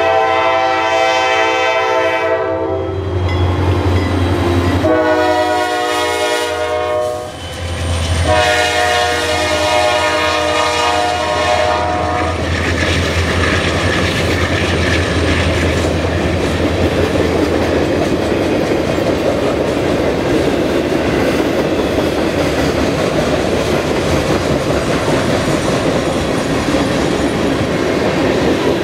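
CSX freight train's locomotive horn blowing for the grade crossing: the end of one blast, a shorter blast about five seconds in, and a long blast from about eight to twelve seconds. After that, the freight cars rumble and clatter steadily over the rails as they pass, over a low steady diesel hum.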